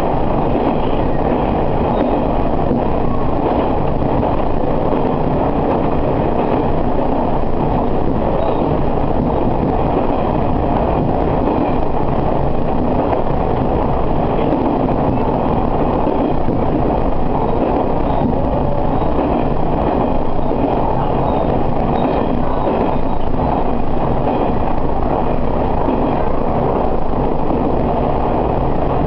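Tarumi Railway diesel railcar running along the line, heard from inside the front of the car: a steady drone of engine and running gear with wheel-on-rail rumble.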